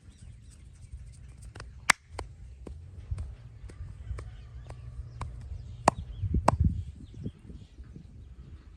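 Hands of a masseur rubbing and pressing on skin and clothing, a low continuous rustle, broken by a few sharp clicks, the loudest about two seconds in and again near six seconds in. A short run of dull thumps follows the second click.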